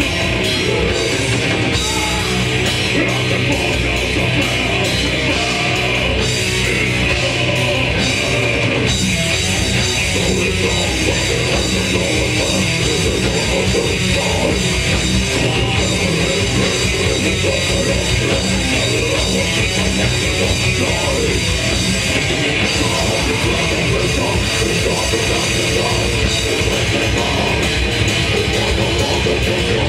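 Live death metal band playing: distorted guitars, bass and a pounding drum kit, loud and continuous.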